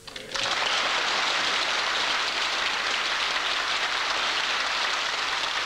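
Large crowd applauding, breaking out at once and holding steady.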